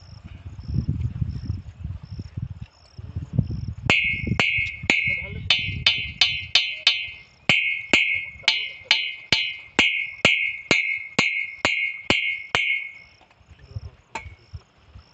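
Metal being hammered: a regular run of sharp strikes, about two a second, each with a short bright ring, starting about four seconds in and stopping near the end. An insect chirps in a steady high pulse in the background.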